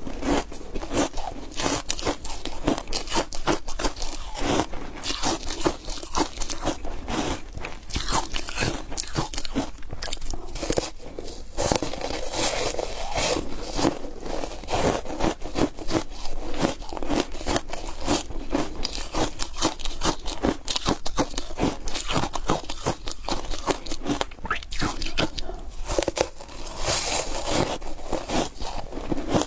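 Close-miked crunching of foam ice being bitten and chewed, a continuous run of crisp, irregular crackles and crunches.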